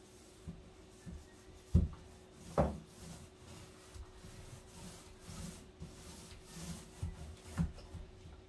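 Paint being applied inside a wooden kitchen cabinet: irregular rubbing strokes of the applicator on the wood, with several knocks against the cabinet. The two loudest knocks come about two and two and a half seconds in.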